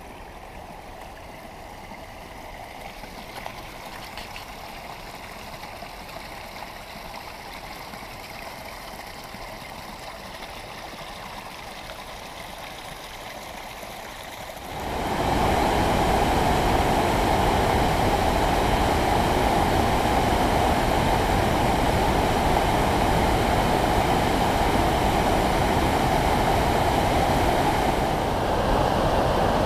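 Steady rush of water, faint at first. About halfway through it jumps suddenly to the loud, continuous rushing of a mountain river's whitewater cascade pouring over boulders.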